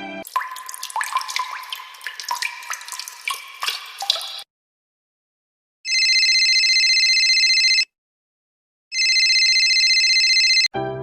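Edited sound effects: about four seconds of irregular drips and plinks like water dripping. After a silent pause come two long, steady electronic ring tones, each about two seconds long with a buzzy edge, about a second apart.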